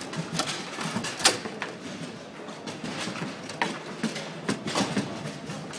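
Table football in play on a Bonzini babyfoot table: a rapid, irregular run of sharp clacks and knocks as the ball is struck by the figures and bangs off the rods and walls, the loudest knock about a second in.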